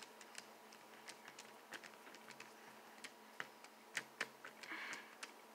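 Faint, irregular small clicks as a Phillips screwdriver tightens the screw and spring back into the Master Pyraminx's plastic core.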